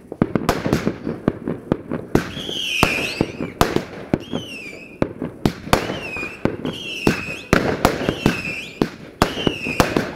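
Fireworks display: a rapid run of sharp bangs and cracks, with a series of wavering whistles from whistling fireworks, about one a second, starting about two seconds in.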